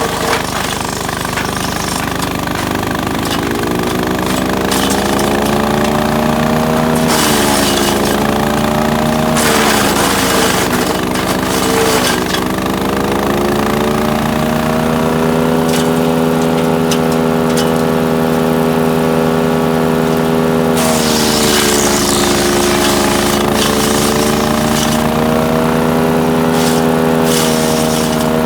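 Split-Fire 4090 wood chipper's engine running hard while wild cherry limbs are fed through. Twice, about a quarter of the way in and again past two-thirds, the engine bogs under the load, its pitch sagging and recovering, while the chipping noise of wood being chewed up rises.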